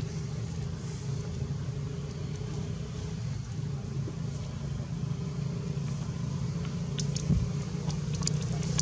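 A motor vehicle engine running steadily, heard as a low rumble with a faint steady hum above it, and a few brief sharp clicks near the end.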